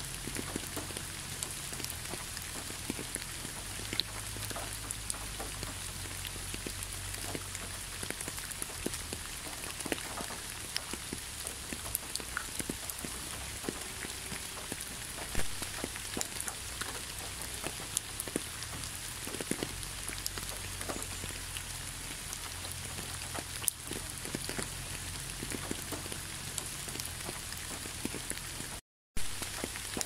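Steady rain falling, with many scattered individual drop impacts and drips heard over an even hiss. The sound cuts out for a split second near the end, then resumes.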